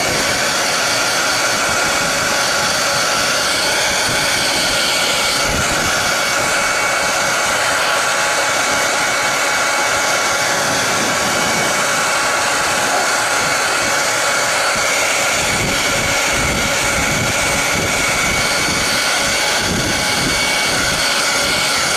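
Hair dryer running steadily: a constant rush of blown air with a steady whine over it, and uneven low buffeting in the second half.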